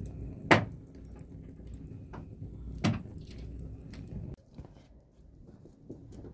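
Two sharp knocks about two and a half seconds apart, with a few lighter clicks, over a low steady rumble that stops about four seconds in.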